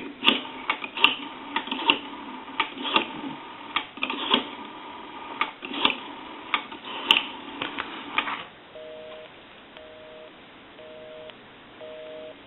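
Western Electric rotary payphone dialing a number, a series of irregular clicks heard over the line. About nine seconds in, a North American busy signal starts: a two-tone beep pulsing on and off about once a second, the sign that the dialed line is busy.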